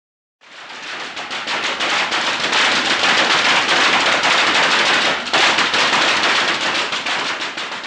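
Supercharged fuel altered drag engine, burning nitromethane, running in the pits with a loud, rapid crackle from its open exhaust while a crew member works the throttle by hand. It drops off briefly about five seconds in, then picks back up.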